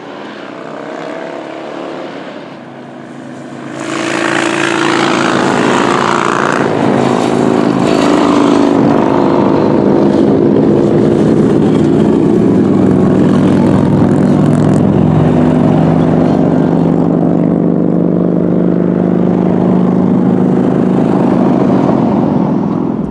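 Yamaha FZ-07 motorcycle's parallel-twin engine running steadily under way, with wind rush. It gets markedly louder about four seconds in and then holds steady.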